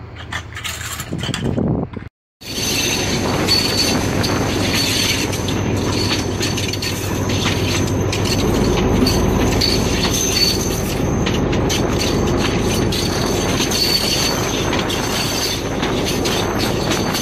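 Brief scraping and clinking of workers' tools in track ballast, then, after a cut, a rail vehicle running along the track heard from on board: a steady rumble and rattle of wheels on rail with a thin, high squeal.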